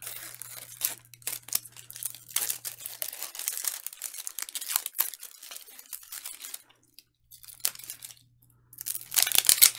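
Plastic wrapper being ripped and peeled off a Zuru Mini Brands capsule ball, crinkling as it comes away. The ripping thins out to a short lull, then a louder burst of ripping comes near the end.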